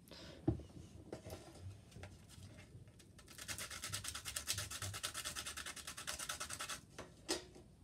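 Quick rhythmic scraping of a pastel pencil for about three and a half seconds, many short strokes in a row, faint. A single knock about half a second in and a short scrape near the end.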